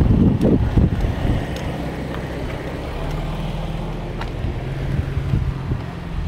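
Wind rumbling and buffeting on a handheld phone's microphone, with heavy gusts in the first second, over a steady low drone.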